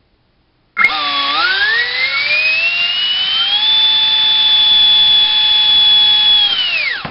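70 mm four-blade electric ducted fan driven by a 3800 kV inrunner brushless motor on a 4-cell battery, starting suddenly about a second in with a whine that climbs in pitch as it spools up to full throttle. It holds steady for about three seconds, then falls away quickly as the throttle is cut near the end.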